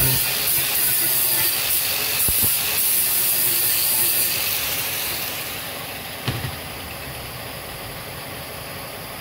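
Angle grinder with an abrasive disc grinding down the mitered corner of a wooden frame, a loud steady high hiss of disc on wood, evening out a 45° joint that didn't line up. The hiss dies away about five seconds in, and a single knock follows about a second later.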